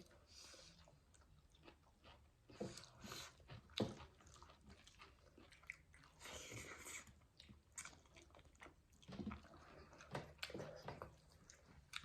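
Faint close-up eating sounds: chewing and biting, with soft crunches, mouth noises and a few sharp clicks.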